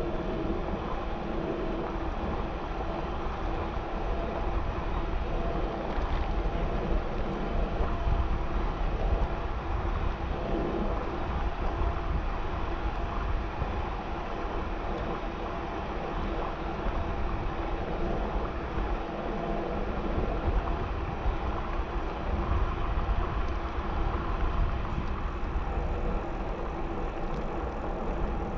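Wind buffeting an action camera's microphone and bicycle tyres rolling on asphalt while riding: a steady, deep rushing noise.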